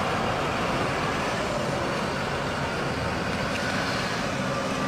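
Steady city street traffic noise: an even rumble and hiss with no distinct events.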